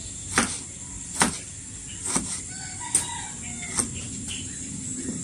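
Kitchen knife striking a cutting board five times, a little under a second apart, slicing tomatoes by hand.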